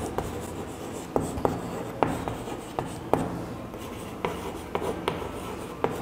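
Chalk writing on a chalkboard: irregular sharp taps and short scratches of the chalk as letters are formed.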